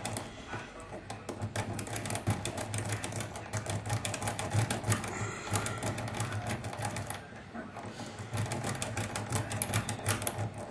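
A rake scrubbing in and out of a Corbin euro profile cylinder lock under light tension: a fast, irregular scratchy clicking of the pins, easing off briefly about seven seconds in. The lock has not yet opened, as a tight keyway makes this cylinder hard to rake.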